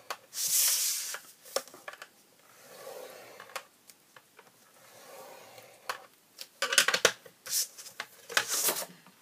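Scoring tool drawn along a groove of a scoring board, pressing a score line into cardstock: a scratchy stroke about half a second in and softer scrapes after it. Near the end, several louder swishes and light clicks as the sheet of cardstock slides across the board and is turned.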